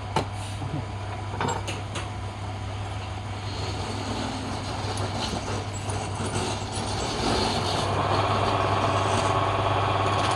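Woodworking machine running with a steady low hum and a few knocks in the first two seconds. From about seven seconds in, its noise grows louder and harsher.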